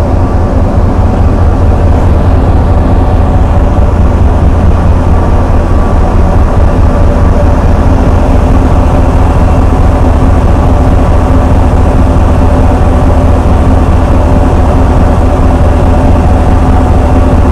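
Diesel engine of an NDJ3 DMU power car running while the train stands at the platform: a loud, steady howl over a deep rumble, with several held whining tones.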